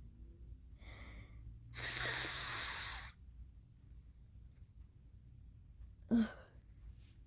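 Allergy-ridden person's sneezing and nose sounds: a quick breath in, then a long, loud blast of air through the nose and mouth about two seconds in, and a short sharp burst near the end.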